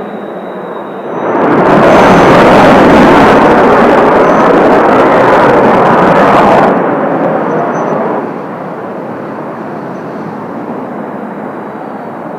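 Kawasaki T-4 jet trainers flying over: a steady jet rush with a thin high whine, swelling about a second in to a loud, full roar for some five seconds as a jet passes close, then dropping back.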